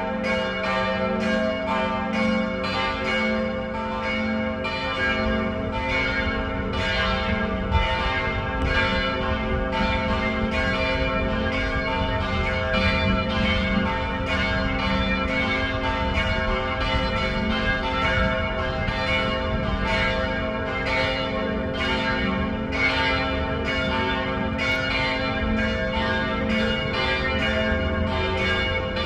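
Church bells ringing in a continuous peal, strokes coming roughly twice a second over their lingering hum.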